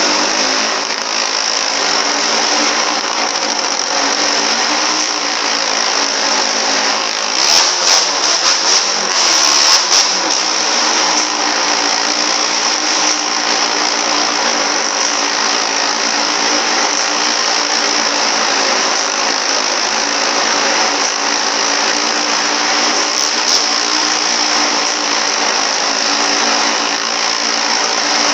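Motorcycle engine running hard at a steady high pitch as it circles the wooden wall of a wall-of-death barrel, with a few brief louder bursts about a third of the way in.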